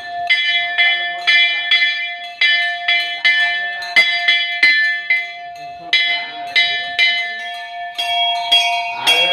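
A metal bell rung repeatedly, about two to three strokes a second, each stroke ringing on over a steady hum.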